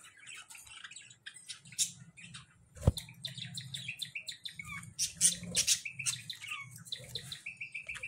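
A flock of budgerigars chirping and chattering continuously in many overlapping short calls, with one sharp knock about three seconds in.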